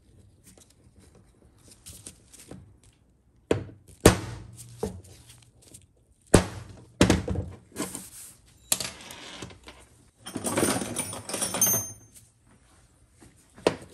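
Sharp metal taps and knocks of hand tools and a pin punch being worked and set down on a steel workbench, a few of them loud, followed near the end by a stretch of scraping and rubbing.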